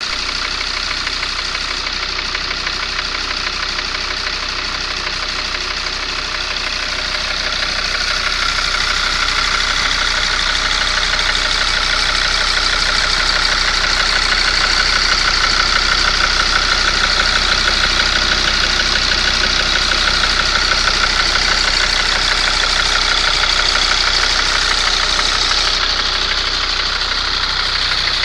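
Mercedes ML W163's 2.7 CDI inline five-cylinder diesel engine idling steadily with an extraneous knocking noise from cylinder 5. The noise goes away when the fifth injector's connector is unplugged, which ties it to that cylinder's injection, even though the injector has been swapped and the compression is good.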